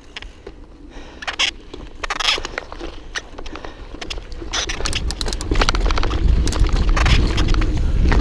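Mountain bike ridden fast down a dirt forest trail: tyres on dirt with many sharp rattles and knocks from the bike over roots and bumps. A low rumble, typical of wind on the helmet camera's microphone, builds from about halfway and gets louder as the speed picks up.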